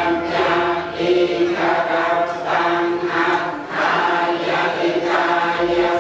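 Buddhist group chanting: many voices reciting in unison on a steady held pitch, in short phrases with brief breaks between them.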